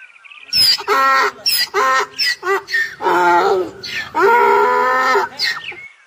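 Donkey braying: a string of loud pitched calls, short wheezy high notes alternating with longer lower ones, the longest near the end.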